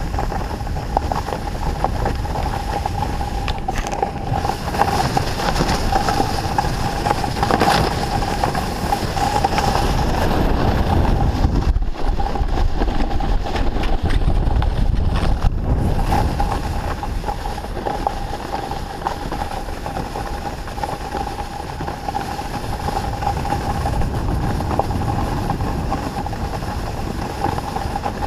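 Snowboard sliding over fresh snow, with wind buffeting the helmet camera's microphone: a steady rumbling hiss with a thin steady tone running through it.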